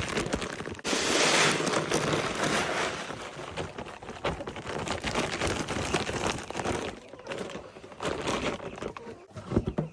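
Chicken feed poured out of a bag: a rushing rattle of grain for a couple of seconds starting about a second in, then irregular crinkling and crunching of the bag and feed.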